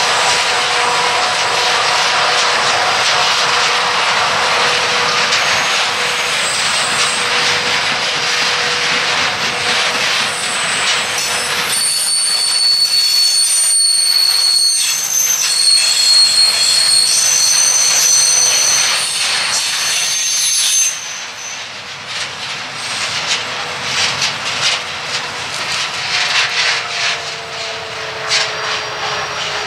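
Freight train of hopper wagons rolling past, a steady rolling rumble and rattle of wheels on rail. High-pitched wheel squeal joins through the middle and cuts off suddenly about two-thirds of the way in. After that the wagons sound quieter, with clicks of wheels over rail joints.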